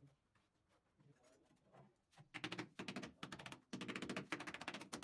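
Rapid rasping scrape on the rough wet cement slab, a dense rattle of fine clicks. It starts about two seconds in, breaks off briefly, then comes back.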